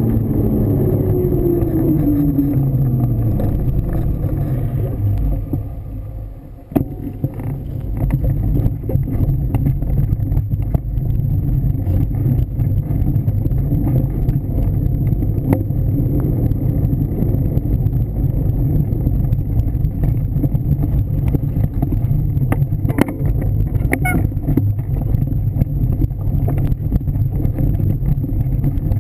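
Heavy low rumble of wind buffeting a bike-mounted camera's microphone, mixed with the front tyre rolling, with a falling hum over the first few seconds. The tyre then runs over a bumpy, leaf-covered dirt trail, with frequent short clicks and rattles from the bike.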